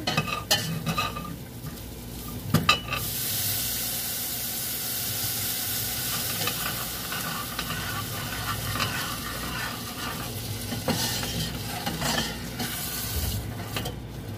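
Food frying in a hot pan: a steady sizzle that starts suddenly about three seconds in, with a utensil stirring and clinking against the pan a few times.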